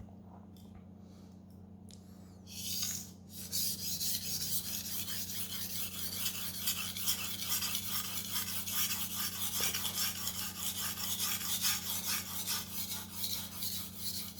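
Steel knife blade stroked back and forth across a wet resin-bonded diamond whetstone, a steady run of scratchy strokes that starts about two and a half seconds in. This is the second side of the edge being sharpened after a burr has been raised on the first.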